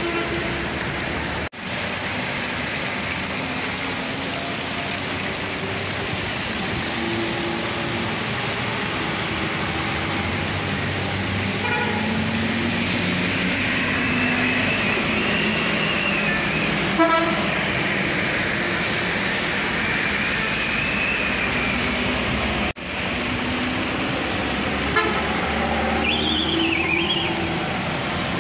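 Street traffic in the rain: a steady hiss of rain and passing vehicles, with horns tooting several times. The sound drops out briefly twice.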